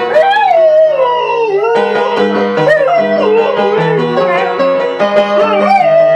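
Flat-coated retriever howling along to a piano. A long wavering howl slides down in pitch over the first second and a half, then more rising and falling howls carry on over the piano's notes.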